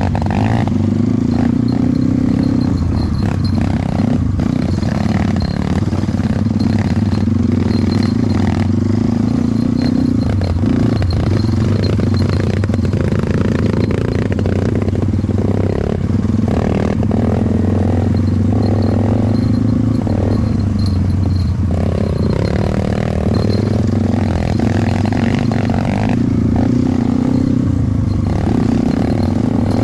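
Trail motorcycle engine running steadily while riding over rough ground, with frequent knocks, clatter and scraping throughout.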